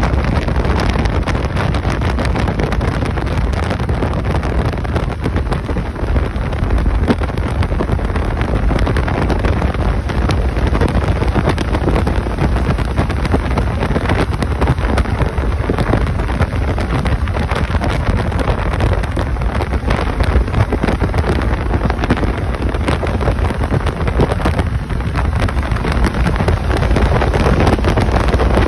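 Steady wind rush buffeting the microphone of a motorcycle moving at road speed, heaviest in the low rumble, with no distinct engine note or separate events standing out.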